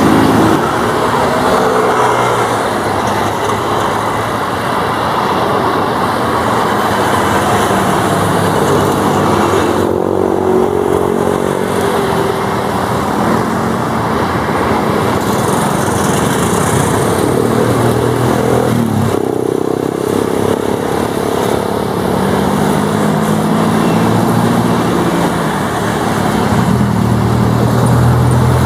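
CASA NC-212 turboprop engines and propellers running, a loud steady hum of several pitches that drift up and down. The sound changes abruptly twice, about a third and two-thirds of the way through.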